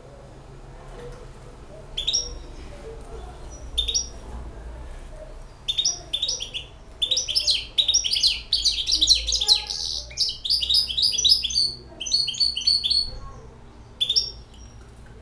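Young goldfinch hybrid singing in its cage: a couple of separate high chirps, then a fast twittering run of song of about seven seconds, ending with a few single chirps.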